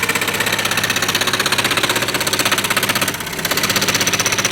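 A power tool running with a fast, even rattle of rapid strokes, easing for a moment about three seconds in.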